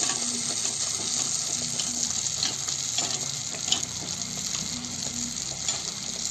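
Mangalore buns deep-frying in hot oil: a steady sizzle with scattered sharp pops and clicks, as hot oil is spooned over the tops to make them puff up.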